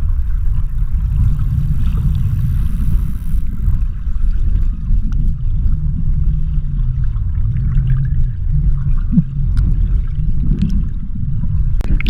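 Low, continuous rumble of a boat on the water, with water churning and a few faint ticks.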